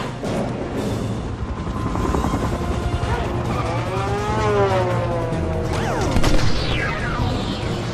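Film chase sound effects: a steady low helicopter and motorcycle engine drone, with an engine whine that rises and falls in pitch about halfway through and a louder sweeping pass-by about six seconds in, all under music.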